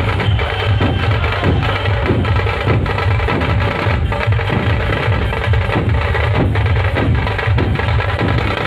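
Maharashtrian dhol drum troupe playing together: many large barrel dhols beaten in a fast, dense rhythm, sharp stick strikes over a steady deep boom.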